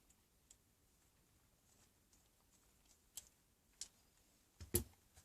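Near silence with a few faint clicks and one sharper knock near the end, as pocket hole jig parts are handled and set down.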